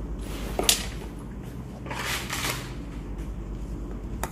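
Handling of camera accessories and their packaging: a sharp click, a rustle lasting about half a second, then another sharp click near the end, over a steady low hum.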